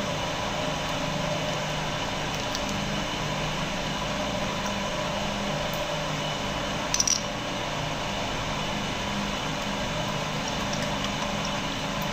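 A steady room hum, with one brief, sharp click about seven seconds in from the plastic screw cap of a mango-drink bottle being handled.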